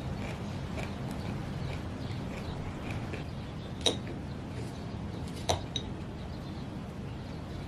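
Two light clinks of something hard against glass or ceramic, like tableware, about four and five and a half seconds in, over a steady low background.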